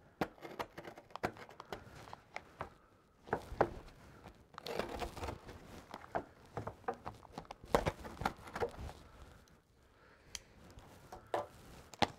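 A small knife slitting the packing tape on a long cardboard shipping box, with tape tearing and cardboard scraping and rustling. It comes as a string of short scratches and taps, busiest in the middle.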